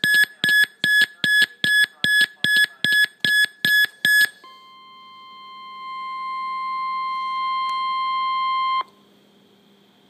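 Weather alert radio beeping rapidly, about three short high beeps a second for four seconds, then the NOAA Weather Radio 1050 Hz warning alarm tone: one steady tone that grows louder for about four seconds and cuts off suddenly, signalling a flash flood warning to follow. A faint low hum remains after it.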